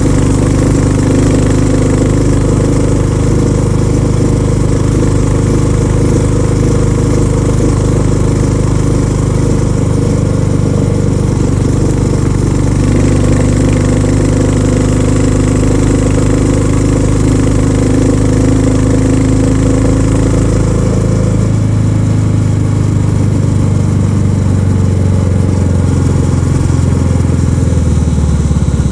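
Royal Enfield Classic 350's single-cylinder engine thumping through its stock exhaust while the motorcycle is ridden. The note changes about two-thirds of the way through, losing some of its higher tones.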